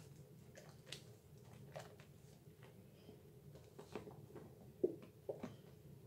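Hands squeezing and rubbing thick lather from Dove bar soap, giving faint, irregular wet squelches and pops, with a few sharper ones near the end, over a low steady hum.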